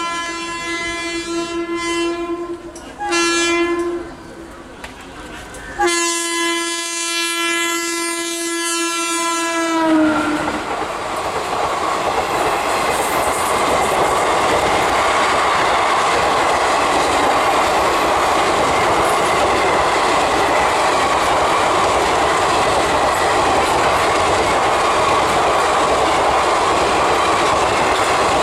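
Electric locomotive horn of a passing express train: a blast that stops near the start, a short blast about three seconds in, then a long blast from about six to ten seconds whose pitch drops as the locomotive goes by. The coaches then run past at speed, a steady loud noise of wheels on the rails.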